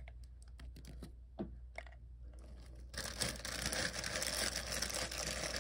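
A few light clicks as small gold glitter balls are handled and dropped into a jar, then from about three seconds in a steady rustling of the small bag they come in being handled.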